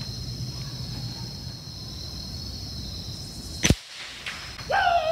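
A single shot from a Winchester Model 70 big bore PCP air rifle firing a .357 pellet, one sharp crack about three and a half seconds in, heard from about 40 yards away near the target.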